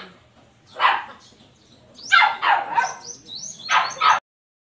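A dog barking: a single bark about a second in, then a quick run of short barks, cutting off abruptly just past four seconds.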